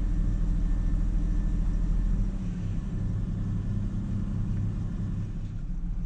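Ford Ranger pickup engine idling while a scan tool's key-on, engine-running self-test has the computer controlling it. The engine note changes about two seconds in as the test varies the engine's running.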